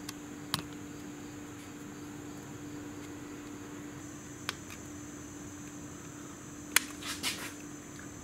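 A few sharp metallic clicks and clinks of hand tools on the motorcycle's fittings, the loudest about seven seconds in and followed by a short run of clinks, as the breather hose is worked off the clutch casing. Under them runs a steady high-pitched hiss with a low hum.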